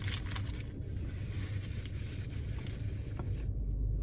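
Paper food wrapper rustling and crinkling, over a steady low hum inside the car; the rustling stops about three and a half seconds in.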